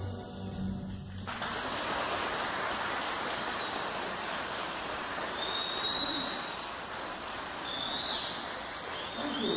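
Orchestra music ends on held low notes about a second in. A steady rush of noise follows, with a few short, high whistling chirps scattered through it.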